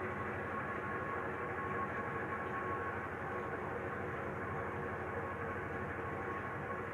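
Steady mechanical drone of running machinery, with a faint even hum that does not change.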